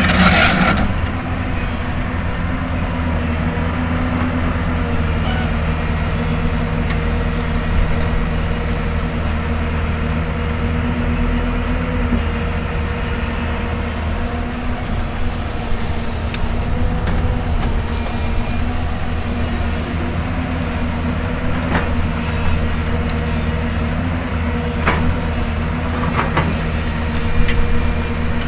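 Hyundai Robex 220-9S excavator's diesel engine running steadily under load, with a few short, sharp knocks near the end.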